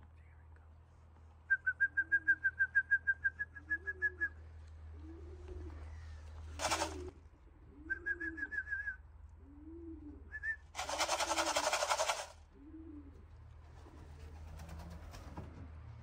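Racing pigeon cooing over and over, a low rising-and-falling coo about once a second. Two fast runs of high, even pips cut in over it, the first about three seconds long, and two short noisy rushes of wing flapping come about halfway and near the end.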